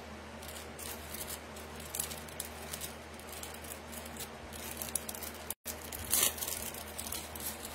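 Light rustling and scattered small clicks of objects being handled, over a low steady hum; the sound drops out completely for a moment a little over five seconds in.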